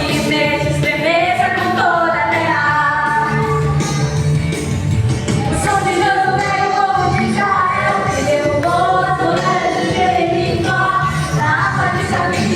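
Music: a song with sung vocals over instrumental backing.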